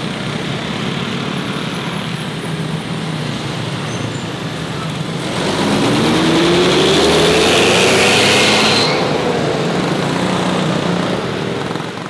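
Street traffic with motorcycles passing; about halfway through a city bus drives past close by, louder for a few seconds, its engine note rising as it accelerates away.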